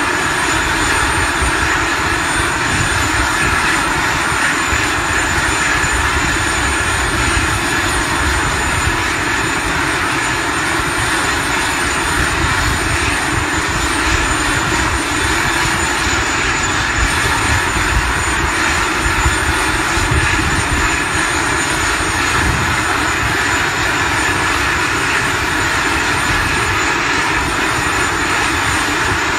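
Zapata Flyboard Air's small jet turbines running steadily on the launch platform: a loud, even rushing noise with a thin high whine over it.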